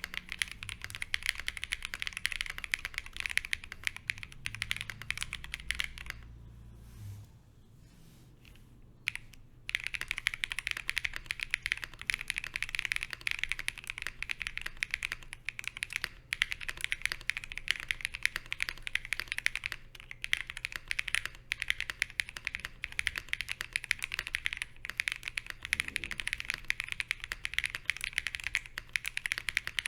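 Steady fast typing on a Fox Lab Sunset 80 mechanical keyboard with lubed Zaku switches, a PC plate and PBT keycaps. The typing stops about six seconds in and resumes after roughly three seconds, now with switch foam added to the case and plate foam.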